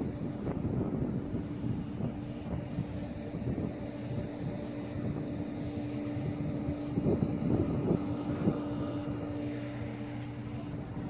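A steady machine hum holding one pitch throughout, under irregular low rumbles of wind buffeting the microphone that are strongest about seven to eight seconds in.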